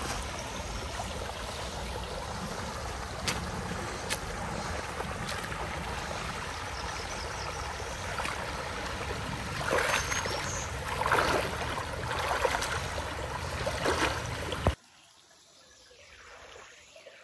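Mountain creek water rushing steadily, with a few louder swells of splashing in the last few seconds. Near the end the sound drops suddenly to a much quieter level.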